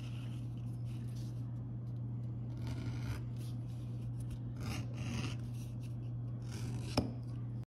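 Edge beveler shaving the corner off a leather edge, in a few short scraping strokes that peel off thin curls of leather. A sharp click comes near the end, over a steady low hum.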